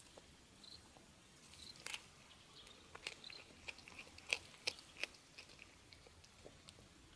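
A cat chewing and biting on a small snake it has caught: a faint string of short crunching clicks, most of them between about two and five seconds in, the loudest a little past the middle.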